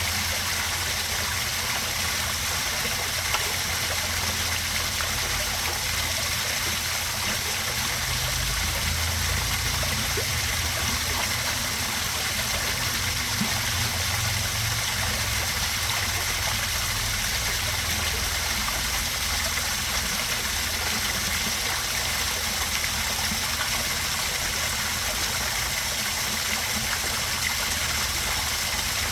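Small backyard pond waterfall splashing and trickling steadily into a koi pond.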